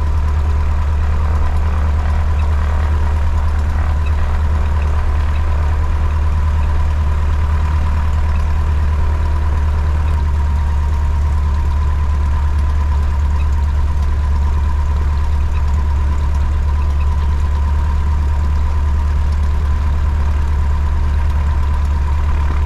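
Cessna 150's four-cylinder Continental O-200 engine and propeller running steadily at low ground power, heard from inside the cabin as a loud, even drone.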